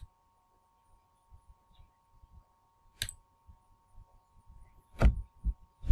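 A few sharp clicks from a computer mouse and keyboard while a web form is filled in: one about three seconds in, then louder clicks near the end as typing begins, over a faint steady hum.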